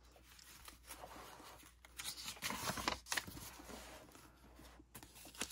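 Paper pages of a handmade junk journal rustling and crinkling as the book is picked up and a page is turned, with a few soft handling taps.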